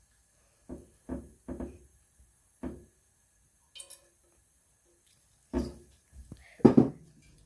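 Kitchen handling sounds: a string of short knocks and clunks from cookware, with the two loudest near the end.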